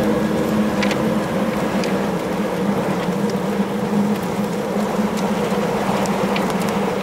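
Steady rushing outdoor noise with a constant low hum and a few faint ticks.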